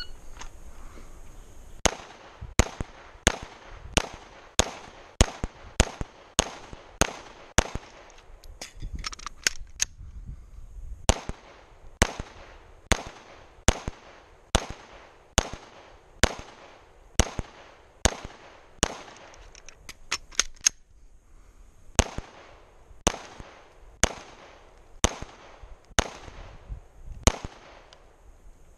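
Glock 17 Gen 4 9mm pistol fired in three strings of about ten shots each, with a short pause for a slide-lock reload between strings, about 9 and 21 seconds in. The first string goes at about one and a half shots a second; the later strings slow to about one shot a second.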